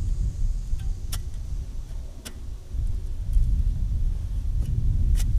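A shovel chopping into dirt and tree roots in a stump hole: three sharp strikes, the last near the end, over a steady low rumble.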